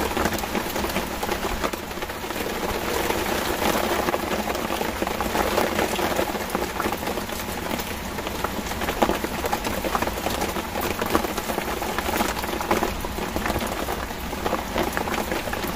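Heavy rain falling steadily: an even hiss dense with the ticks of many close drops.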